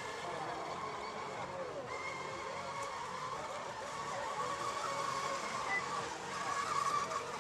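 Several radio-controlled electric racing monohull boats running flat out across the water. Their motors and propellers make a steady high whine that wavers and bends in pitch as the boats pass and turn.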